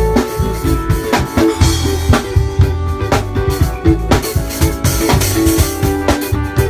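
Live band music: a drum kit playing a steady beat with bass drum and snare under an electric bass guitar line and sustained instrument chords.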